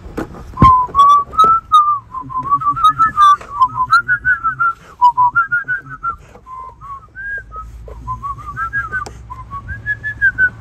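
A person whistling a wandering tune with short rising and falling notes, with a sharp click about a second in.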